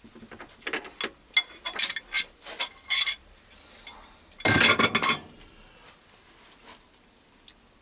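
Metal clicks and clinks as a brass workpiece is worked loose from a steel collet chuck and slid out. About four and a half seconds in comes a louder, short clatter of metal on metal that rings on briefly.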